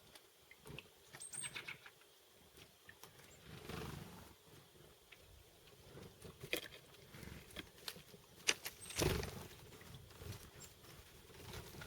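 Chickadees feeding on seeds: scattered light taps and knocks of beaks and feet, a few soft rustles, and a couple of brief high peeps.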